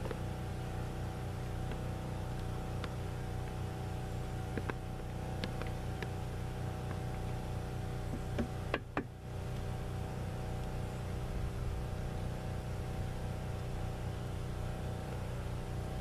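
A steady engine-like motor drone with a constant pitched hum, with a few light clicks and a short burst of handling noise about nine seconds in.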